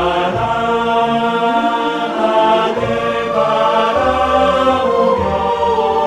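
Background music with slow, long-held notes that change pitch gradually.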